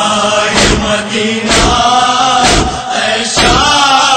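Voices chanting a Urdu noha, a Shia mourning lament, with a sharp beat about once a second, the chest-beating (matam) that keeps time in a noha.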